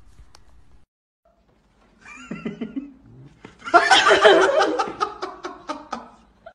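People laughing: a higher wavering giggle about two seconds in, then loud laughter in quick repeated bursts from about three and a half seconds in.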